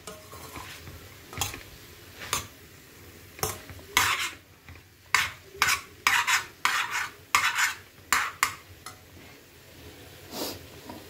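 Metal spoon scraping and stirring chopped vegetables in a stainless-steel kadai: a run of short, irregular scrapes against the pan, over the faint sizzle of the vegetables frying.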